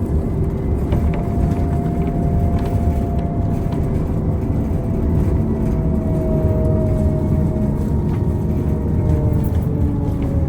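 Motor vehicle running in city traffic: a steady low rumble with a whine that slowly drops in pitch, as a vehicle slows.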